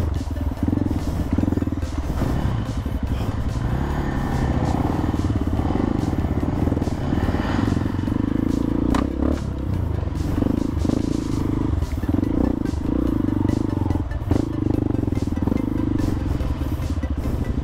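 Honda CRF150L dirt bike's air-cooled single-cylinder four-stroke engine running, its revs coming and going every second or so.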